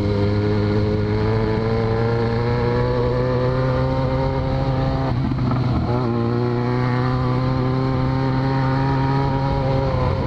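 Yamaha XJ6's inline-four engine running under way through a de-baffled, open exhaust, heard from the rider's position with wind noise. The engine note climbs slowly, breaks off briefly about five seconds in, then picks up again at a slightly lower pitch and climbs as the bike pulls on.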